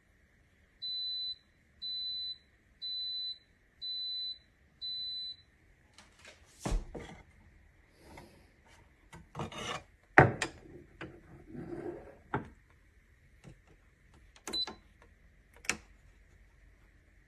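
Five high electronic beeps about a second apart, typical of an espresso machine's signal. Then irregular knocks, clicks and rubbing of parts being handled, the sharpest knock about ten seconds in.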